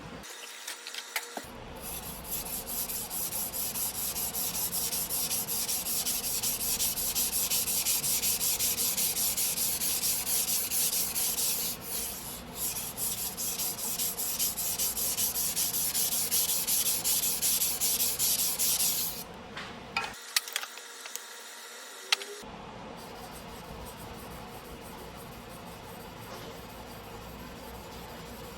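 Steel knife blade stroked back and forth on a water whetstone: a gritty, rasping grind in rapid repeated strokes, briefly interrupted partway through. It stops about two-thirds of the way in, followed by a few sharp clicks.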